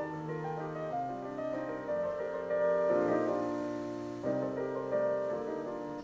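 Piano music from an FM radio station, heard through a Yamaha RX-360 stereo receiver: a series of held chords changing every second or so. It cuts off suddenly at the end as the tuner is stepped to another frequency.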